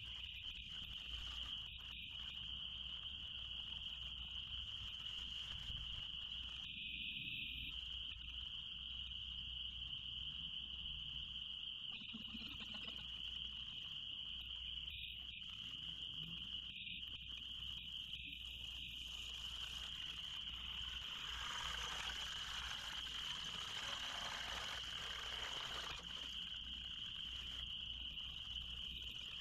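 Faint, steady, high-pitched outdoor chorus of night frogs and insects. A soft rush of noise, like running water, swells in for several seconds about two-thirds of the way through.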